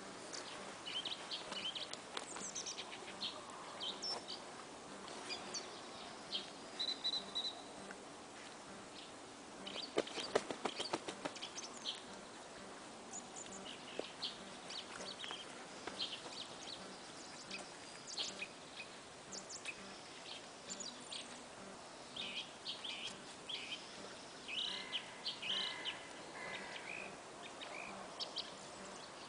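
Small birds chirping and calling on and off, short high notes scattered throughout. About ten seconds in, a brief run of sharp clicks or rustles is the loudest sound.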